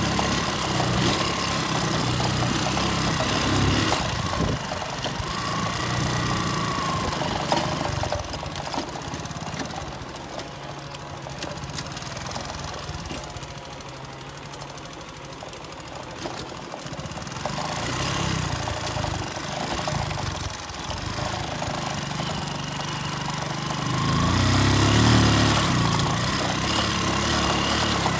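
An engine running steadily, quieter in the middle and getting louder again near the end.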